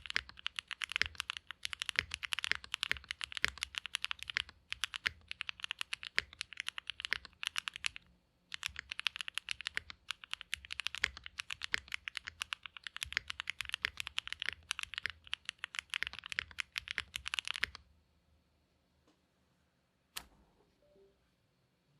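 Mode Sonnet mechanical keyboard with Oil King linear switches on a POM plate and GMK keycaps, typed on fast in dense runs of key strokes with two short breaks. The typing stops about four seconds before the end, followed by one lone click.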